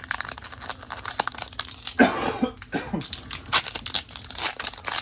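Foil Pokémon booster pack wrapper crinkling and crackling in the hands as it is torn open, with a louder rough burst about two seconds in.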